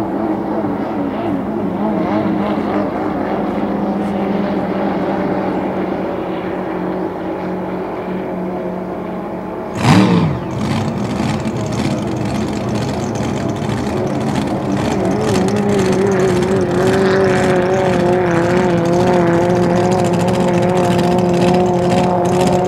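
Several 2.5 Stock class outboard racing hydroplanes running at full throttle, their engine notes wavering as they race. About ten seconds in there is a sudden loud burst with a steeply falling pitch. After it, a steadier, stronger engine note holds.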